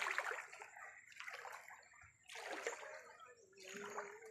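Floodwater splashing and sloshing in irregular bursts about a second apart.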